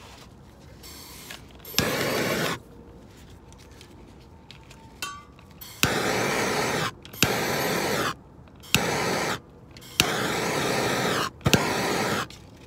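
Handheld gas torch fired in short bursts about six times, each starting with a sharp click of the igniter, then a steady hiss of flame for about a second before it is let off. It is heating heat-shrink connectors on trailer brake wires.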